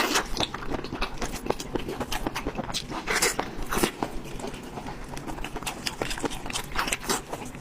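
Chewing and biting into meat: a steady run of irregular wet smacks and crunchy clicks.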